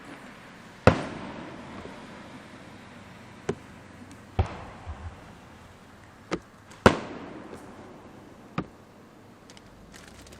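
Aerial fireworks shells bursting: about six sharp booms in ten seconds. The loudest come about a second in and near seven seconds, each trailing off in a rumbling echo.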